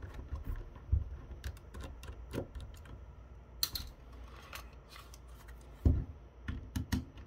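Small precision screwdriver working at screws in the plastic body of a Kodak DX3900 digital camera, with scattered light clicks and taps as the camera is handled and turned, and two heavier thumps, about one second in and near six seconds.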